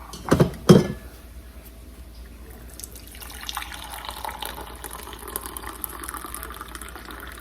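Two sharp knocks, then water running from a tap, starting about three seconds in and going steadily on.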